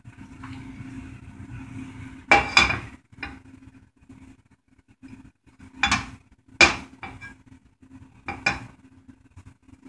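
Pots, pans and utensils clinking and clattering: a cluster of sharp knocks about two and a half seconds in, then single knocks around six seconds and a double knock near the end, over a low steady hum.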